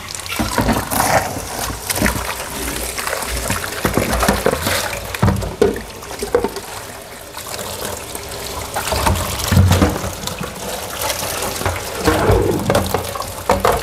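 Flour-coated chicken breast pan-frying in hot oil in a wok: a continuous sizzle with many crackling pops and spatters.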